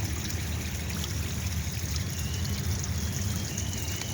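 Train rumbling steadily at a distance as a low drone, with a thin, wavering high whine coming in about halfway through, over creek water running.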